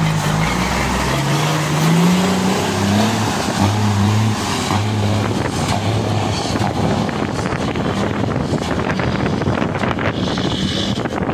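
Tri-axle dump truck's diesel engine pulling away. Its note climbs in pitch over the first few seconds as it accelerates, then steadies and grows fainter as the truck moves off down the road.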